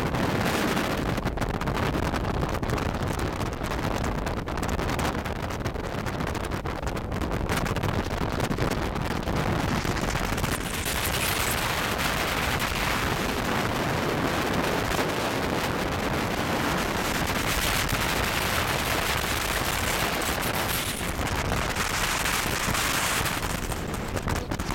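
Wind buffeting the microphone of an inflatable boat running at speed, over the rush of water and spray along the hull. The hiss grows brighter from about ten seconds in.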